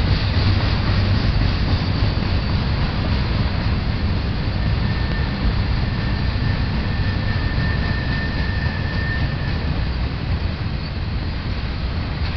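Double-stack intermodal well cars rolling past on steel rails, a steady loud rumble of wheels and cars. A faint high-pitched tone sounds for several seconds in the middle.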